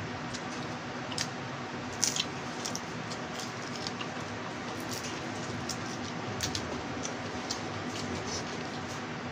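Eating small boiled crabs by hand: wet squishing and chewing, with scattered small crackles and clicks as the shells are picked apart, the sharpest about a second and two seconds in, over a faint steady hum.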